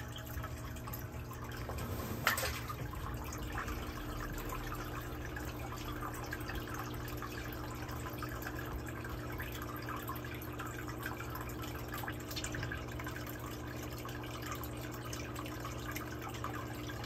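Water trickling steadily from a small filter spout into a shallow pond, over a low steady hum. A single sharp tap comes about two seconds in.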